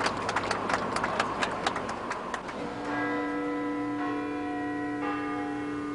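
Aircraft passengers clapping, fading out about two and a half seconds in. Then bells ring in long, held tones that shift twice.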